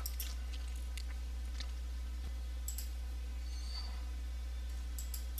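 Several faint computer-mouse clicks over a steady low electrical hum.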